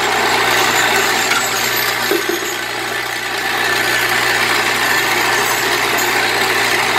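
Vibratory bowl feeder running: a steady electric hum under a continuous metallic rattle as spikes are shaken along the bowl's spiral track.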